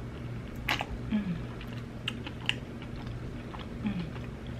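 Close-miked chewing of saucy barbecue pork rib meat: scattered wet mouth clicks and smacks over a steady low hum.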